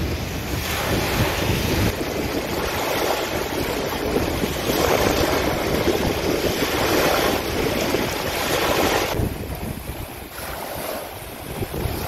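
Small wind-driven waves breaking and washing onto a river shore, the surge swelling and easing every couple of seconds. Wind buffets the microphone with a low rumble in the first two seconds, and the wash softens about nine seconds in.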